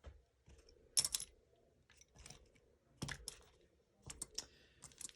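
Hard plastic and metal parts of an airsoft rifle being handled during disassembly: a few scattered sharp clicks and clatters, the loudest about a second in.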